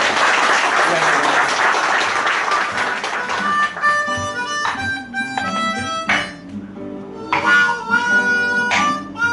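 Audience applause for the first few seconds, then a diatonic blues harmonica playing sustained notes over strummed acoustic guitar chords.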